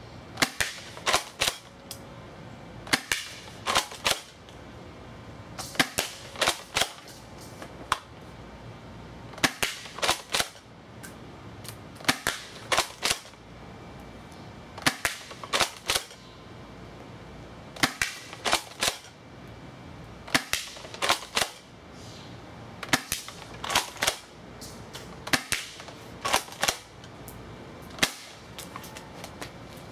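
Double Eagle M56A (M3 Benelli clone) spring airsoft pump shotgun, pumped and fired over and over with 0.28 g BBs, three BBs per shot. It sounds as about ten bursts of sharp clicks, roughly every two and a half seconds.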